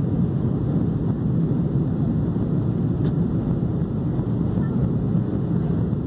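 Steady low-pitched cabin noise of an airliner in flight: engine and airflow noise heard from inside the passenger cabin.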